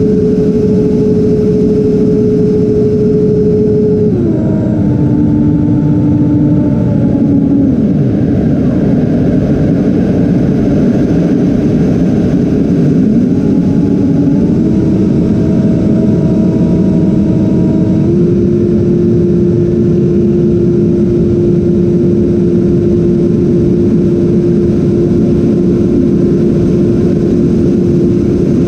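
Twin electric ducted fans of a Freewing A-10 Thunderbolt II RC jet in flight, heard from on board as a whine over heavy air rush. The whine drops in pitch about four seconds in as the throttle comes back, then climbs again in steps around fourteen and eighteen seconds and holds steady.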